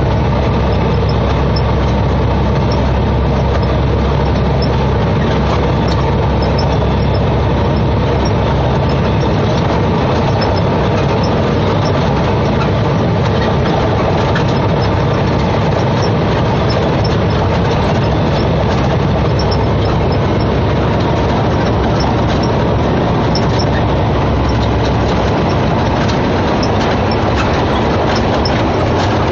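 Semi-truck's diesel engine running and road noise heard inside the cab while driving, steady and loud.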